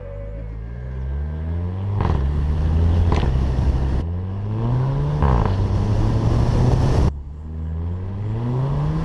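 Volkswagen Beetle 2.0 TSI turbocharged four-cylinder accelerating hard, its revs climbing through each gear. At each DSG upshift the pitch drops suddenly and the exhaust gives a short blat, the 'DSG fart', about three times, with abrupt cuts between clips.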